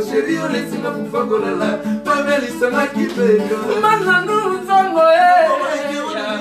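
A man singing a song to a live acoustic guitar accompaniment, the guitar plucked and strummed under the voice.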